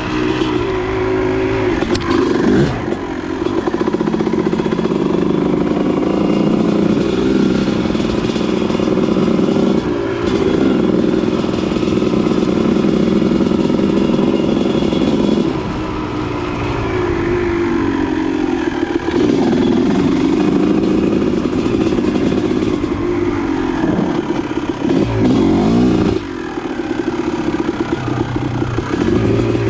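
Single-cylinder two-stroke Honda CR250R dirt-bike engine with an aftermarket pipe, ridden on a trail, its pitch climbing and dropping over and over as the throttle is opened and closed, with a few short drops in level.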